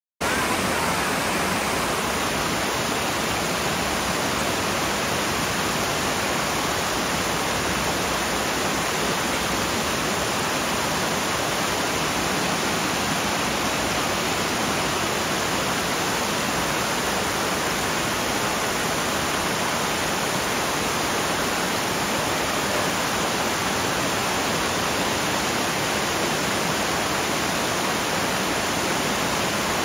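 Water rushing over rocks in a shallow cascade: a steady, even rushing that starts abruptly just after the beginning and does not change.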